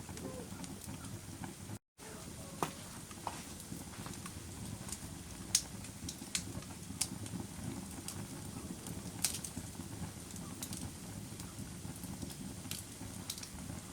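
Wood campfire crackling: irregular sharp pops and snaps over a steady low rumble of burning. The audio cuts out completely for a moment just before two seconds in.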